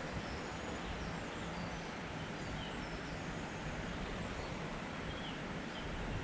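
Steady rushing outdoor background noise with a few faint, brief bird chirps.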